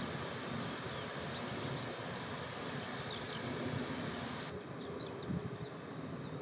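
Airbus A380's Rolls-Royce Trent 900 engines running at taxi power: a steady rumble and hiss, with small birds chirping faintly over it. The hiss drops abruptly about four and a half seconds in.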